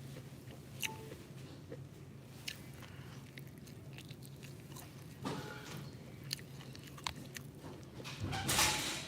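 Close-up mouth sounds of someone eating fried eggs: chewing and biting with scattered sharp clicks. A louder noisy burst comes near the end. A steady low hum runs underneath.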